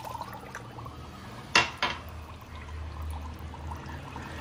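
Water poured from a drinking glass into a bamboo tube packed with rice and chicken, trickling in. About a second and a half in, two sharp knocks close together, the loudest sounds.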